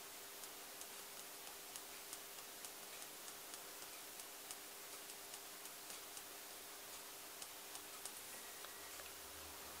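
Faint, even ticking, about three ticks a second, over a low steady hum.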